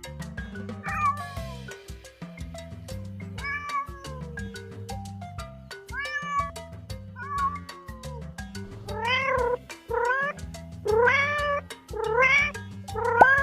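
Domestic cat meowing over background music with a steady beat. A few separate meows come in the first half. From about nine seconds in, the meows come quickly and louder, several rising in pitch.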